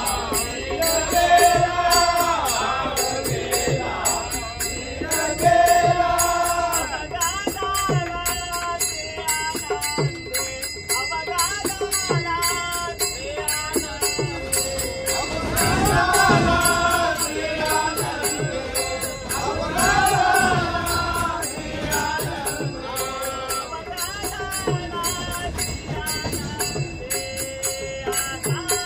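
Marathi devotional abhang sung in long phrases, with small hand cymbals clinking a fast, steady beat and a low beat under it.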